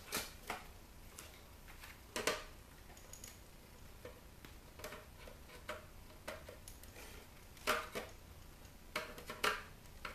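Scattered clicks and knocks of the CD changer's plastic and sheet-metal parts being handled and set down, with louder knocks about two seconds in and near the end.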